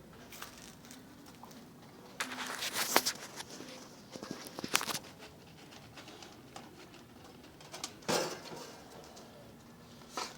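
Several short bouts of rattling and clinking on a galvanized sheet-metal kibble dispenser as a dog feeds from it. The longest comes about two seconds in, with single sharp clinks near the middle and again near the end.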